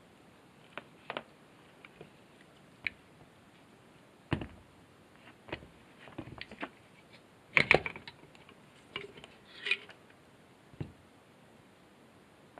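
Scattered clicks and knocks of an electric ATV winch's metal housing and cable drum being handled and pulled apart, with one low knock a third of the way in and the loudest cluster of knocks a little past halfway.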